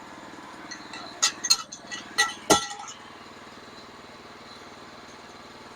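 Sawmill engine running steadily, with a handful of sharp metallic clinks from about a second to two and a half seconds in, around a piece of steel embedded in the log.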